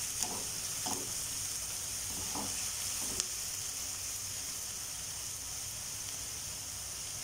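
Chopped onions and ginger-garlic paste sizzling steadily in hot oil in a nonstick kadai, being sautéed to cook off the raw smell of the paste. A spatula scrapes through them a few times in the first half.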